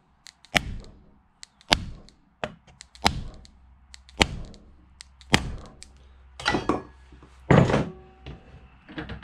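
Hammer blows on a block of wood laid over the top of an axe handle, driving the wooden wedge into the handle's kerf to lock the axe head on. There are seven solid thunks about a second apart, the last the loudest.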